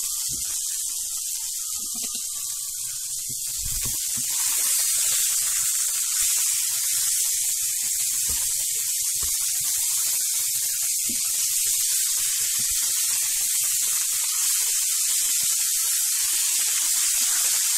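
Beef burger patties sizzling in hot oil in a frying pan: a steady high hiss that grows louder about four seconds in.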